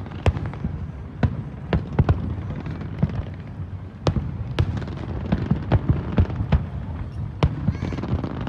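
Aerial fireworks shells bursting in quick irregular succession: sharp bangs about twice a second over a continuous low rumble of more distant bursts.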